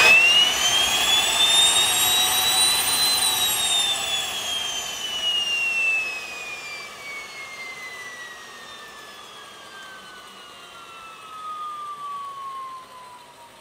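Solar T-62-32A small gas-turbine engine on an electric start attempt: a whine rises quickly in pitch for about three seconds, then falls steadily as the turbine winds down. The sound is loudest over the first few seconds.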